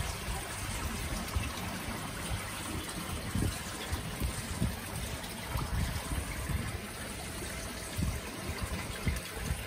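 Steady trickle and splash of water pouring into a koi pond from wall spouts and a bubbling outlet, with uneven low bumps underneath.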